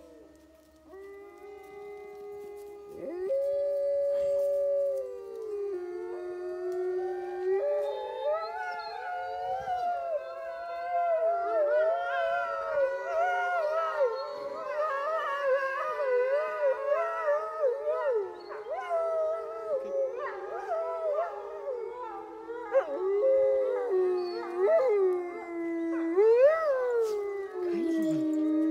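A wolf pack howling in chorus: one long howl opens, others join after a few seconds, and the long calls overlap at different pitches. Near the end a dog joins in with shorter howls that rise and fall, off the wolves' pitch.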